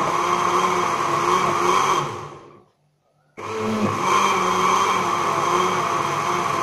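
Electric countertop blender running at full speed, blending chopped raw green mango in water. About two seconds in it is switched off and winds down to a stop, then after a brief pause it starts again abruptly and runs on steadily.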